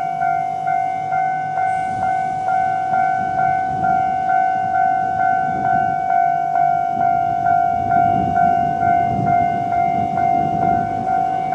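Japanese level-crossing alarm ringing its electronic bell tone, an even repeated ding at about two and a half strikes a second. A low rumble grows from about seven seconds in as a Choshi Electric Railway 2000-series train passes over the crossing.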